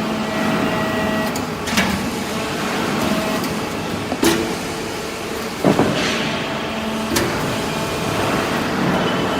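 Copper wire baler press running: a steady machine noise with faint steady tones, and four short knocks a second or two apart.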